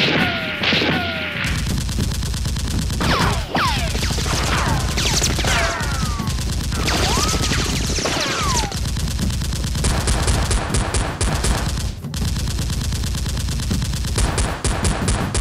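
Rapid automatic gunfire sound effects: sustained fast shots with many descending whistling ricochets and whizzes through the first nine seconds or so, then continuous fire with a dense high ticking.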